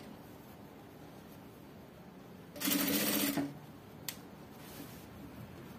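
Industrial lockstitch sewing machine running in one short burst of just under a second, about two and a half seconds in, stitching bias tape slowly and carefully. A single click follows about a second later.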